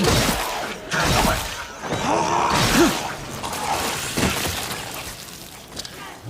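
A run of crashing, shattering impacts about a second apart from a fight sound effect, fading away over the last couple of seconds.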